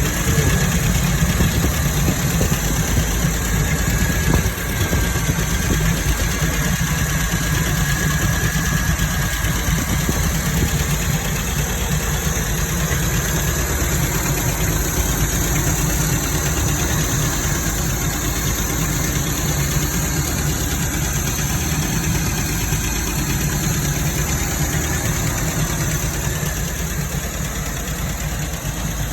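MGB engine idling steadily, with a brief dip in level about four and a half seconds in.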